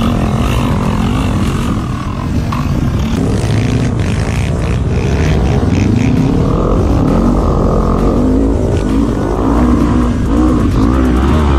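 Off-road quad engines revving hard, their pitch rising and falling over and over with throttle and gear changes.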